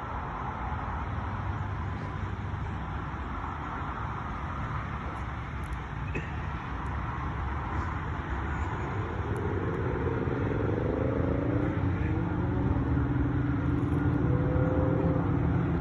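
A motor vehicle's engine hum over a steady low rumble, growing louder from about halfway in as the vehicle approaches.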